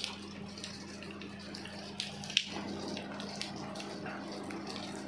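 Steady rain hiss with a low steady hum underneath, and one sharp click about two and a half seconds in.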